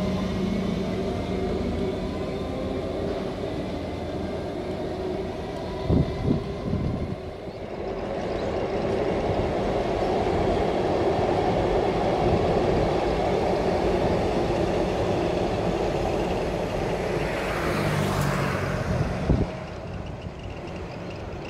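Comeng electric train pulling away from a station platform, its motors whining with several steady tones over the rumble of the wheels. Then a Comeng train runs along an elevated concrete viaduct with a steady rumble of wheels on rail that drops away near the end. Two short knocks, about six seconds in and near the end.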